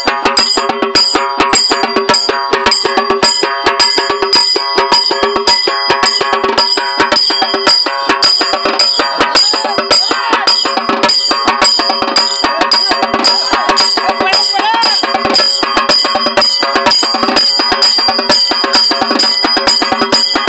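Fast, even drumming from a procession's drums, several strokes a second, with a steady high tone sounding over it.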